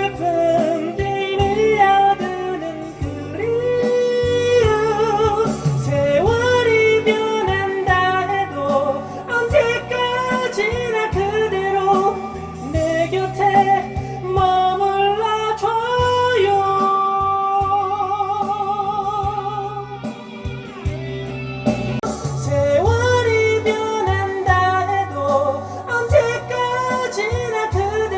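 Karaoke singing of a Korean rock ballad over the machine's backing track with guitar. The voice glides between notes and holds a long note with vibrato about two-thirds of the way through.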